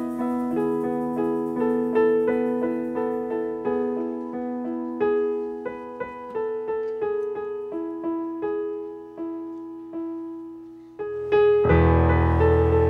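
Solo digital piano playing a slow melody of single notes that each ring and fade. About a second before the end, the ensemble comes in with held notes, clarinets among them, over a low sustained bass.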